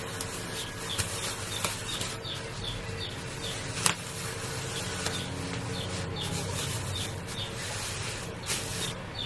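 Clear plastic shower cap crinkling and rustling as it is pulled and tucked over wet hair, with scattered sharp crackles; the loudest comes about four seconds in. Faint high chirps repeat in the background.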